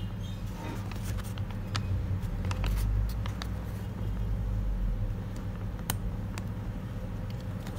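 A paper banknote handled in the fingers, giving a few sharp crinkles and ticks, over a steady low rumble that is the loudest sound.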